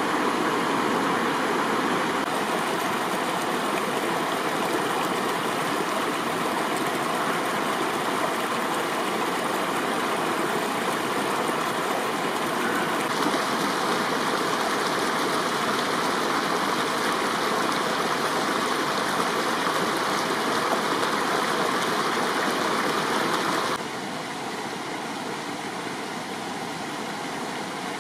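Spring-fed mountain stream cascading and flowing over rocks: a steady rush of water that drops a little in level near the end.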